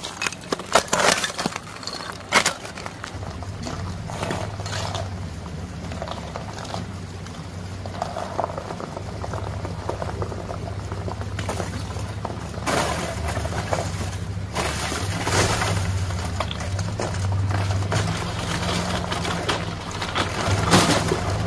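Ice crunching and cracking in the first few seconds. Then a lifted Chevrolet Colorado pickup's engine runs low and steady as the truck creeps across the frozen stream, with ice breaking and water sloshing under the tyres.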